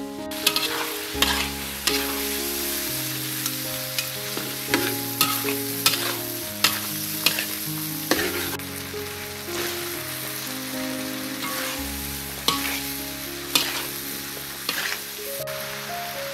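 Shrimp and green beans sizzling in a wok as they are stir-fried. A spatula scrapes and clinks against the wok in repeated, irregular sharp strikes over the steady hiss of the frying.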